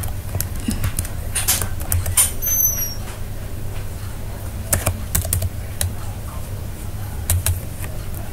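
Computer keyboard typing: irregular key clicks, singly and in short runs, over a steady low hum.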